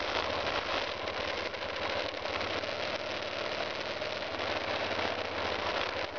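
BMW F 650 GS Dakar's single-cylinder engine running steadily at riding speed, its firing pulses a fast low throb. Wind and road noise rush over the mirror-mounted camera.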